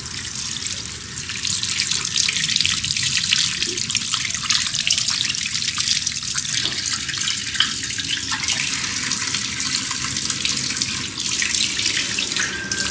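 Kitchen tap running steadily into a stainless steel sink, splashing over pieces of fish as they are rubbed clean by hand.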